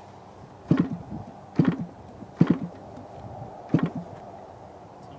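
The propeller on a DLE-30 30cc gasoline engine in a model plane is flipped by hand four times, each flip a short sharp knock as the engine goes over compression. The engine does not catch.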